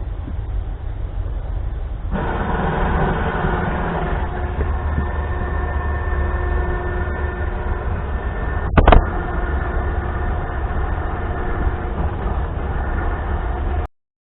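A 2500 lb electric winch motor starts about two seconds in and runs with a steady whine over a low rumble, pulling in the newly repaired cable under load to test whether it holds. About nine seconds in there is a single sharp clunk.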